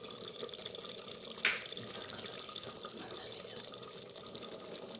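Chicken curry simmering in an open clay handi, bubbling and popping softly and steadily, with one sharper pop or click about a second and a half in.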